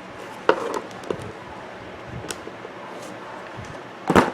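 A few light clicks and taps from handling a wall clock's movement and case, with a louder knock near the end.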